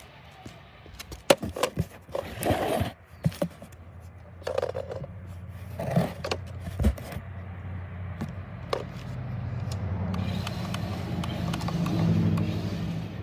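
Electric RC car driving on ice: a string of sharp knocks and scrapes in the first half, then its motor and drivetrain whirring steadily and getting louder near the end as the wheels spin with almost no grip.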